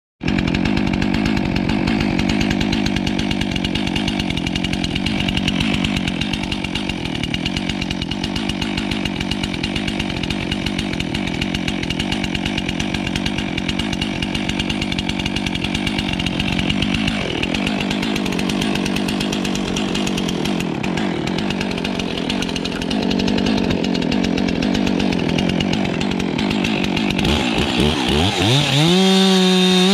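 Stihl MS 362 two-stroke chainsaw running steadily at idle, then revved up and down several times near the end.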